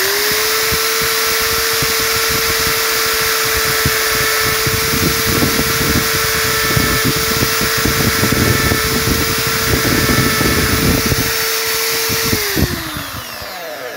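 Electric drill held in a bench jig running at a steady pitch, spinning a small rubber model truck tire while a pointed pin scores grooves into its tread, with irregular scraping through the middle. The drill is switched off near the end and its pitch falls as it spins down.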